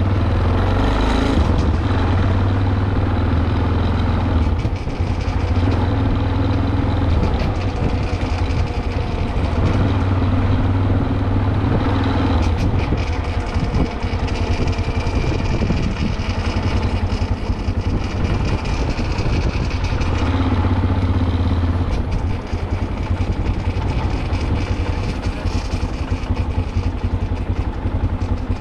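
Motorcycle engine running while riding at low speed, its note rising and falling several times with the throttle.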